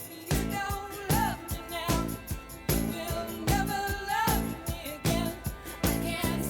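Background pop song: a singing voice over a steady drum beat.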